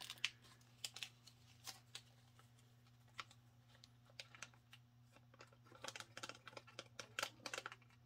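Faint crinkling of a small clear plastic parts bag being opened and picked through for O-rings, with scattered light clicks that come thicker in the second half. A faint steady hum runs underneath.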